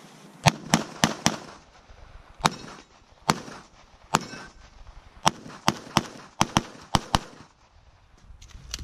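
Pistol shots fired in a competition stage, each a sharp crack with a short echo. There is a quick burst of four in the first second and a half, then single shots about a second apart, then a faster string of about seven between five and seven seconds in.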